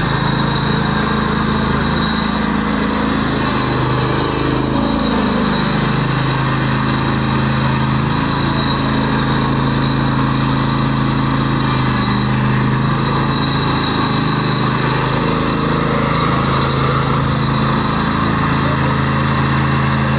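Engine of a Viking ride-on lawn mower running steadily at low speed, its revs dipping briefly and coming back up about five seconds in.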